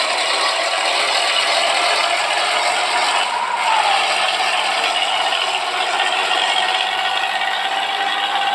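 Truck running with a steady rattle and a whine that drops a little in pitch about three and a half seconds in, then holds steady.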